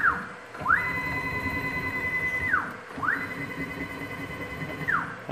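Stepper motor on the G0704 mini mill's Y-axis, driving the lead screw through two powered moves. Each move ramps up to a steady high whine, holds for about two seconds with a mechanical rumble under it, then ramps down as the axis stops. The second move starts about three seconds in.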